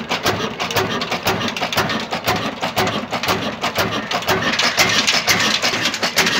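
Old single-cylinder horizontal stationary engine with twin flywheels running steadily, its firing strokes a regular thudding beat of about four a second.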